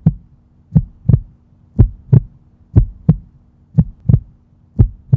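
Heartbeat sound effect: paired low thumps in a lub-dub rhythm, about one beat a second, over a faint steady hum.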